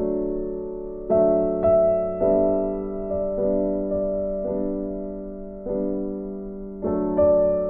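Slow background piano music: chords struck about once a second, each left to fade.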